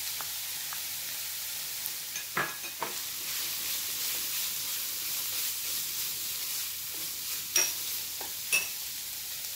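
Chopped onion and canned salmon sizzling in a hot non-stick wok as a wooden spoon stirs and breaks them up, with a steady frying hiss. The spoon knocks against the pan a couple of times about two seconds in and twice more, louder, near the end.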